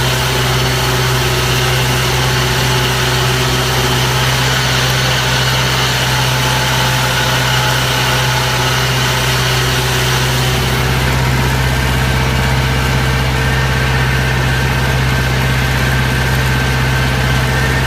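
A machine engine idling steadily at an even speed, with a constant low hum.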